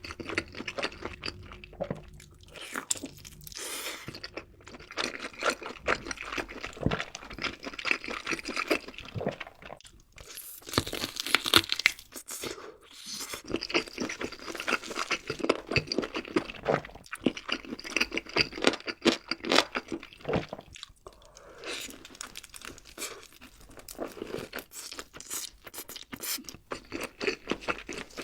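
Close-miked eating sounds of someone biting and chewing crunchy food, a dense crackling crunch in runs, with brief lulls about ten and twenty-one seconds in.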